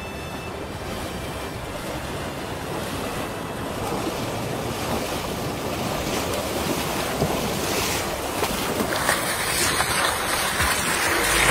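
Steady rushing of floodwater, with splashing as elephants wade through it and wind on the microphone. The noise grows gradually louder toward the end.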